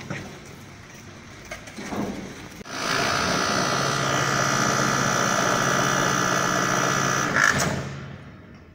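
Electric drive machinery of a hollow core wall panel production line, preceded by a couple of knocks. The machine starts about a third of the way in and runs steadily with a whine, then stops and dies away near the end.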